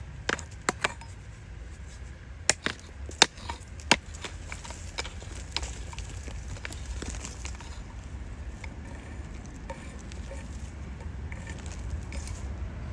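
A hand tool chipping and scraping at hard-packed sediment: a handful of sharp knocks in the first four seconds, then lighter scraping and clicks, over a steady low rumble.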